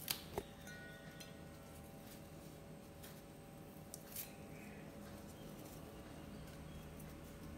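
Faint room tone with a steady low hum. Two sharp clicks come near the start, followed by brief ringing tones, and a lighter click comes about four seconds in.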